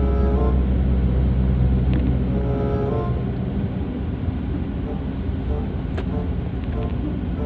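Road and engine noise of a moving car heard from inside the cabin: a steady low rumble, with a single sharp click about six seconds in.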